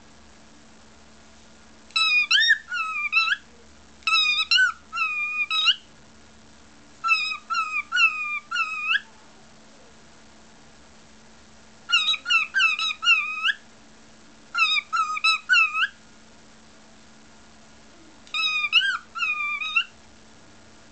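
Cockatiel whistling in six short bursts of song, each a quick run of notes that swoop up and down, with pauses of about one to three seconds between bursts.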